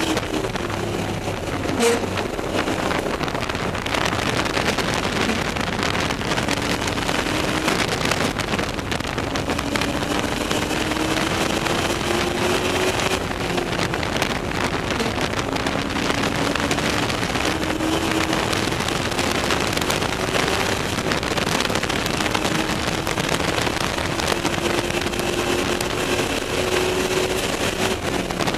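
Ford Mustang race car's engine heard from inside the cabin at speed: its pitch climbs steadily through each gear and falls back at each upshift, several times over, under a constant rush of wind and road noise. A single sharp knock about two seconds in.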